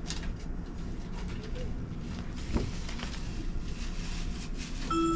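Steady low rumble inside the carriage of a Tobu Spacia X limited express train, with a single knock about two and a half seconds in. A chime of clear notes starts just at the end.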